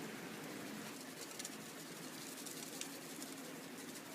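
Bell peppers, onions and zucchini sizzling and steaming in a covered frying pan: a steady faint hiss with fine crackles.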